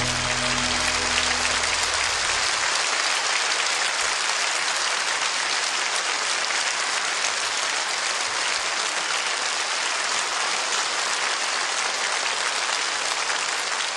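Audience applause at the end of a song, steady throughout; the last low held notes of the music die away about two seconds in.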